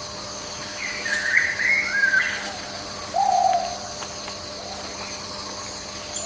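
Animal calls over a steady faint hum: a warbling, higher call about a second in, then a shorter, lower call that falls slightly about three seconds in.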